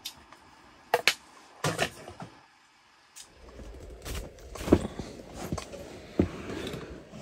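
A few sharp clicks of a fork against a plastic food container, then after a short gap, low rustling and soft thumps of someone shifting on an inflatable tent floor while pulling off socks.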